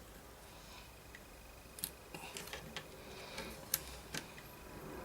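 A few light clicks and taps from hand work on a radio and its parts, scattered through the second half.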